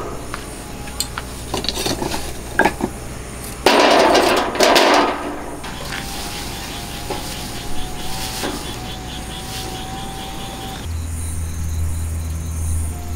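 Lumps of charcoal clinking and knocking against a steel barbecue grill as they are set in place with tongs, then a loud rustling rush as wood shavings are dropped onto the charcoal. A steady low hum sets in near the end.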